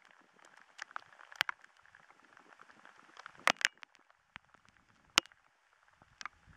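Rain and small hailstones striking fabric close to the microphone: irregular sharp ticks over a faint steady hiss of rain, a few hitting louder about three and a half seconds in and again about five seconds in.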